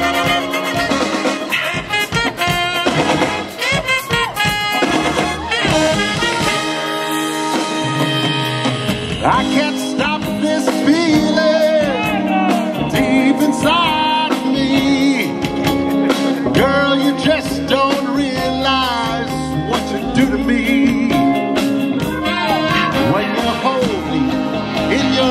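Live swing band playing jazzy music with brass and singing.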